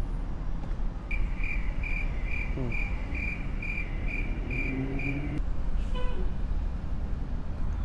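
Steady road traffic noise. From about a second in, a high chirp repeats about twice a second for roughly four seconds. A short toot comes about six seconds in.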